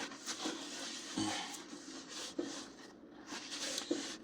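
Paper towel rubbing over the toaster oven's tempered glass door, wiping at baked-on grease, with a few light knocks.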